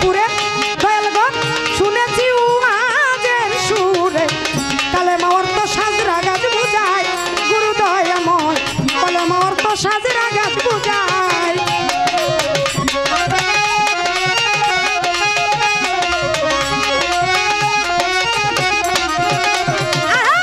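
Bengali baul folk music: a steady hand-drum beat under a wavering, ornamented melody line.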